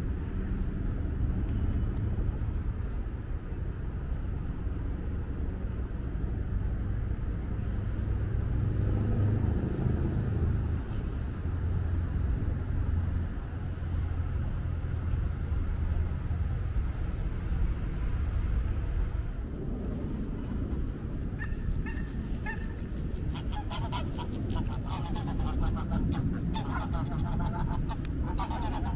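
A steady low rumble, joined about two-thirds of the way in by a run of repeated honking calls.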